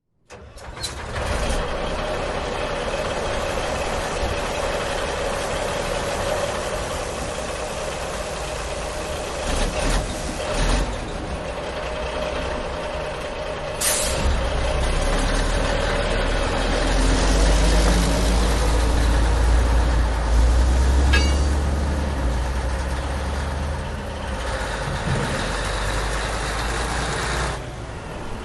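Dumper truck engine running with heavy machinery noise. Partway through there is a short sharp hiss, then the engine's rumble grows deeper and louder for about ten seconds before easing near the end.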